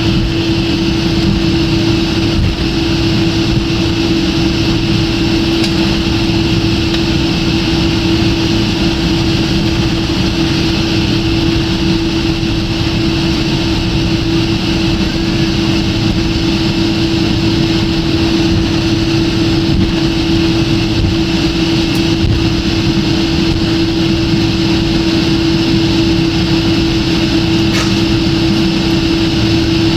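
Jet airliner cabin noise heard from a window seat: a steady rush of air and engine noise with a constant low hum.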